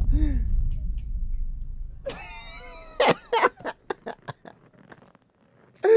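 A person laughing hard in short, breathy bursts that break off near the end. Under it, a low rumble fades out over the first two seconds.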